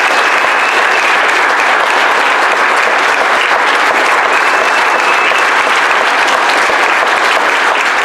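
A church congregation applauding steadily after a baptism by immersion: dense, loud clapping from many hands.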